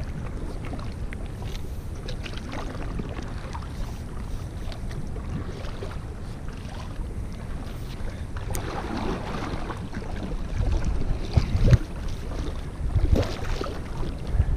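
Stand-up paddle strokes splashing and dripping in calm lake water, with a steady low wind rumble on the microphone; the strokes come stronger and more often in the last few seconds.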